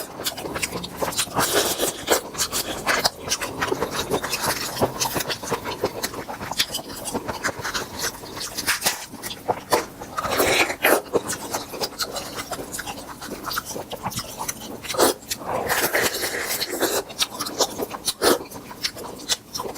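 Close-miked eating sounds over grilled tiger prawns: many small sharp crackles and clicks with scraping and rubbing, and a few longer noisy stretches about halfway and near the end.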